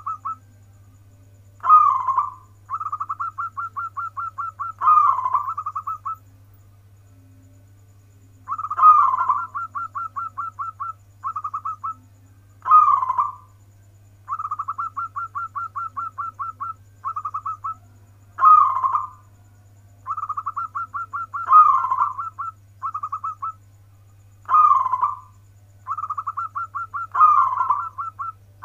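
Zebra dove (perkutut) cooing in its 'warung kebek' song: quick runs of short, even notes, about seven a second, broken every few seconds by a louder rolling coo that drops in pitch.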